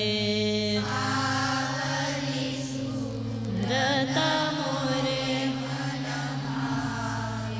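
A woman's voice singing a slow devotional bhajan in classical style, holding and bending long notes over a steady drone accompaniment.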